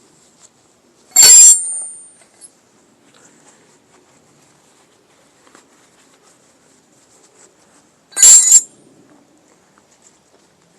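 Two short, loud bursts of metal-on-metal clatter with a high ringing, about seven seconds apart, from work on a truck's rear drum brake.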